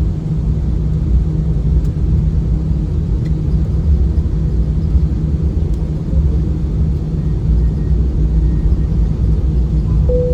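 Airliner cabin noise heard from inside before takeoff: a steady low rumble of the engines with a constant hum. A single chime sounds at the very end.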